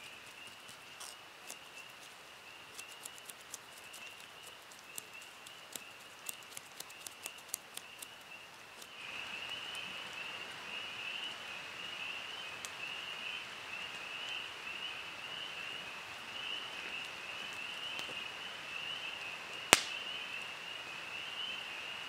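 A knife scrapes scales off a small fresh-caught fish in a run of small sharp ticks, over a steady high-pitched outdoor chorus. About nine seconds in, the sound changes to a campfire with the chorus louder, and near the end the fire gives one sharp pop.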